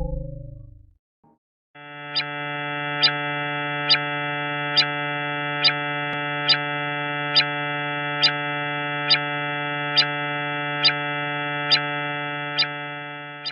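Sonified space recording from Jupiter's system: a steady electronic drone with many overtones, ticked by a sharp click a little more than once a second. It follows the fading end of a rising, gliding tone and a brief pause.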